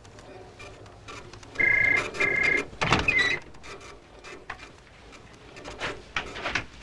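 Office telephone ringing with the British double ring, a pair of short electronic trills about one and a half seconds in. About three seconds in comes a single loud clunk, followed by faint clicks and rustling.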